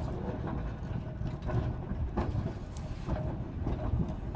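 English Electric Balloon tram running slowly past at close range over curved track, a low rumble from its wheels and running gear with irregular clicks of the wheels over the rails.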